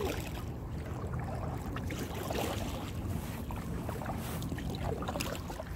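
Kayak paddle strokes: water swishing and dripping off the paddle blades at an irregular pace, over a steady low rumble of wind on the microphone.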